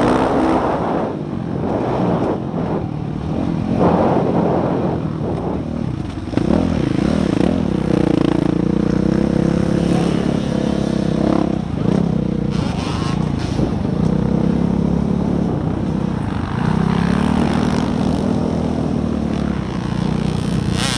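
Motocross dirt bike engine heard close up from an onboard camera while racing, the revs rising and falling repeatedly as the throttle opens and closes, held steady for a few seconds at a time.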